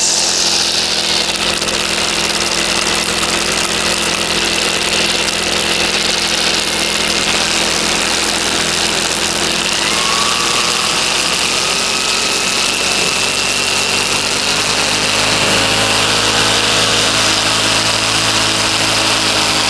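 Backpack brushcutter engine running at a steady set speed while its spinning square nylon trimmer line is held against a rock and beats on the stone. The line is wearing down, and the engine is working under load.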